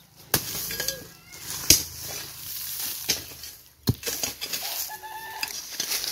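Hand hoe chopping into dry ground to loosen the soil, about four sharp strikes at uneven intervals. A few short pitched calls sound in the background.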